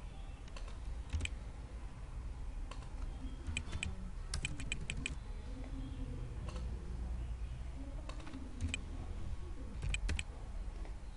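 Computer keyboard being typed on in short, scattered bursts of keystrokes, with a quick run of about half a dozen strokes around four to five seconds in, over a low steady hum.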